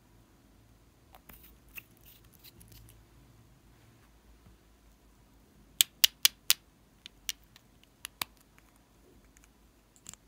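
Sharp plastic clicks and taps from two lip tint tubes being handled, with a quick run of four loud clicks about six seconds in and a few fainter clicks after. Faint scratchy ticks come earlier, as the applicator is handled.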